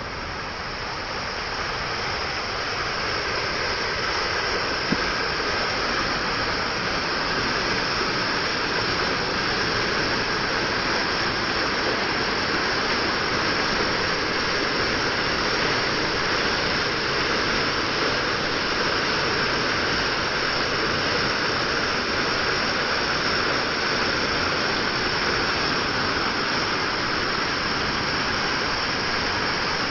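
Waterfall: falling water rushing in a steady, continuous hiss, growing louder over the first few seconds and then holding even.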